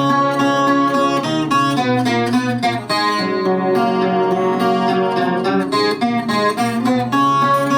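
Chilean guitarrón played solo in an instrumental interlude, its many plucked strings ringing in a steady run of notes with no singing.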